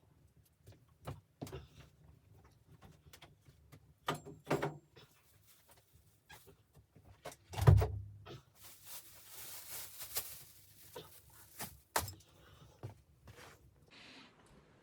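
Scattered knocks and clicks of things being handled, with one heavy thump about halfway through followed by a few seconds of scraping, rustling noise.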